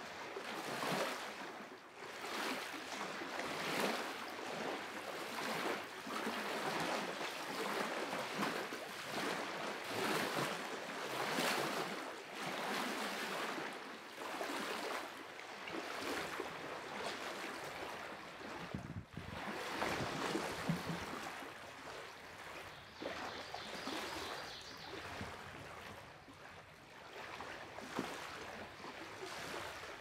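Small lake waves lapping against the shore in soft, repeated washes, one every second or two.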